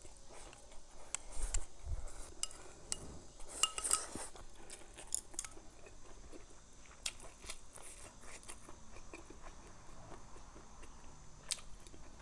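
Close-up eating: chopsticks clicking against a porcelain bowl as food is shovelled in, a low knock about two seconds in, then chewing of stir-fried pickled mustard greens, bamboo shoots and diced cured pork, with scattered small crunches and clicks.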